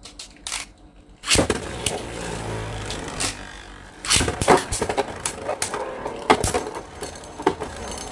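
Two Beyblade spinning tops launched into a plastic stadium, one about a second in and the second about four seconds in. They whirr as they spin, with many sharp clicks and clatters as they strike each other and the stadium wall.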